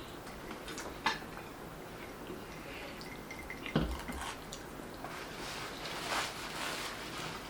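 Close-miked eating sounds: wet chewing and mouth sounds of a person eating noodles, with two sharp clicks of a utensil on a plate, about a second in and near four seconds.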